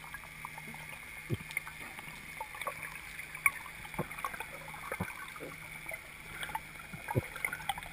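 Underwater ambience picked up by a submerged camera: a steady low hum under irregular sharp clicks and crackles.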